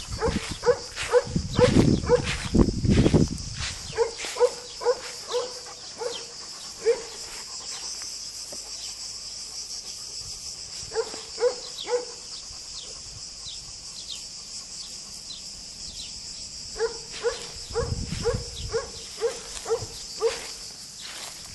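Weimaraner dog yipping in runs of short, quick barks, two or three a second, that stop and start several times. A steady high chirring of insects runs underneath.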